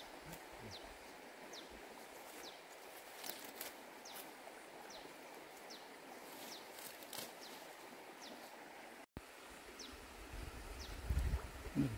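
Outdoor ambience: leafy plants rustling as they are picked by hand, over a steady hiss with short, high, falling chirps about once a second. The sound cuts out briefly, and then comes low rumbling thumps near the end.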